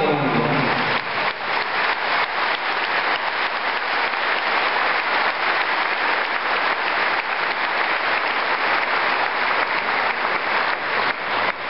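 Large audience applauding steadily, a dense sustained clapping from many hands. A man's amplified voice trails off in the first second as the applause takes over.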